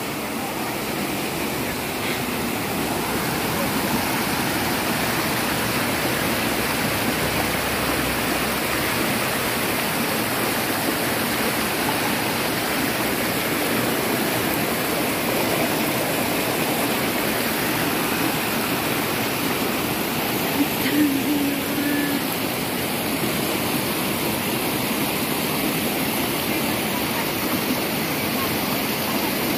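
Steady rushing of a rocky mountain stream tumbling over boulders in small white-water cascades.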